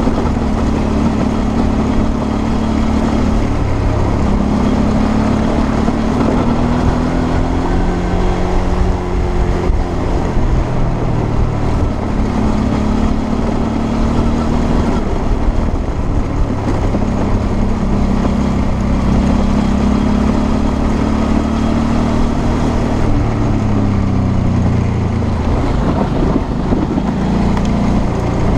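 Suzuki V-Strom 650's 645 cc V-twin engine running under way on a gravel track, its pitch rising and falling a few times with the throttle, over a steady rush of wind and tyre noise.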